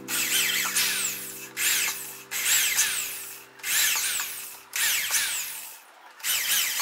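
Corded electric drill boring into a plywood board in about six short bursts of roughly a second each, stopping briefly between them.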